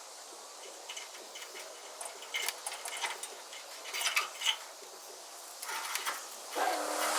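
Scattered light clicks and clinks of metal parts being handled, then a louder metallic clatter and rattle building near the end, as of trailer hitch hardware being worked loose.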